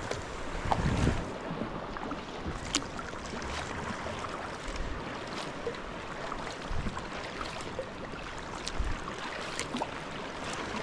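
Sea kayak paddle strokes in choppy sea water: the blade dipping, splashing and dripping, with many small scattered drip and splash ticks over the lapping water. There is a louder swish about a second in.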